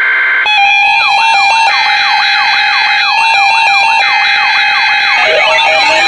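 Layered electronic alarm and siren tones. A steady alarm tone comes first; about half a second in, a fast up-and-down siren sweep takes over, about three sweeps a second, over a steady tone and alternating higher beeps. More sweeping tones join near the end.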